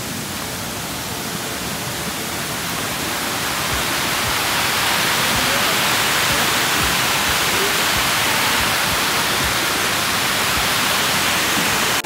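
Fast stream rushing over rock in a steady hiss of water that grows louder about four seconds in, then holds.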